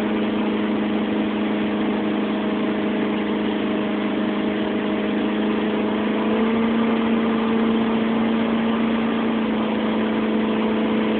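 Motorboat engine running steadily at speed, its pitch and loudness stepping up slightly about six seconds in.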